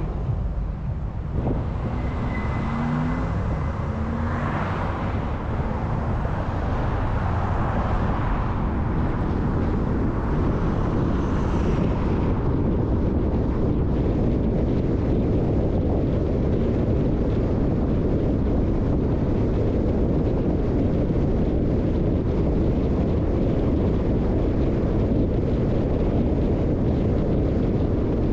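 Steady road and wind noise of a car driving, a low rumble that swells briefly a few times in the first half and then runs evenly.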